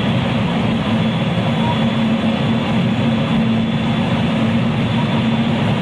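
Interior running sound of a JR West 223 series electric train's motor car at speed, with the steady rumble of wheels on rails. A constant low hum runs through it, with no change in pitch.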